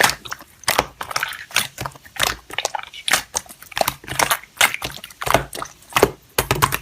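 Slime being squished and pressed by hand, giving irregular wet clicks and crackling pops, several a second.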